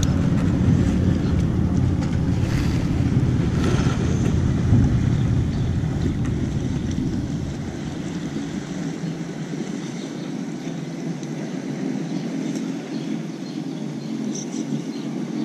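Wind buffeting the microphone, a heavy low rumble that eases about halfway through, with a few light clicks early on.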